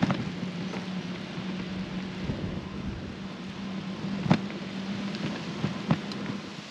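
Bicycle rolling along a gravel path: a steady rush of tyre and wind noise with a low hum, and a few knocks and rattles as the bike bumps over the surface, the loudest about four seconds in.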